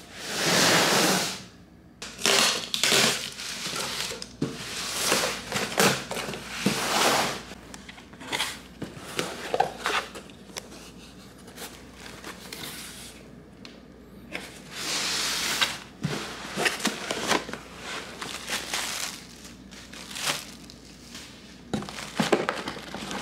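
Cardboard shipping box being unpacked by hand, with plastic air-pillow packing crinkling and rustling in irregular bursts and a few longer sweeps of rustling.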